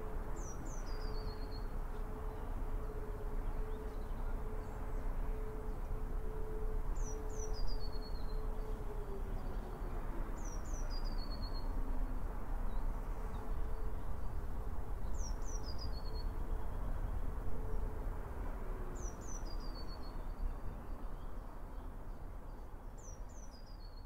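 Distant E57 air-raid sirens holding a steady tone, then winding down one after the other: the first falls in pitch about nine seconds in, the second near nineteen seconds. A small bird repeats a short, high, falling song phrase every few seconds over a steady background hiss.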